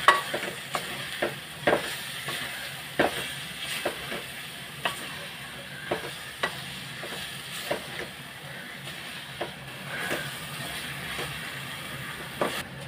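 Wooden spatula stirring and scraping crumbled shark-fish mixture frying in oil in a metal pot: a steady sizzle with irregular knocks of the spatula against the pot, roughly one every half second to second.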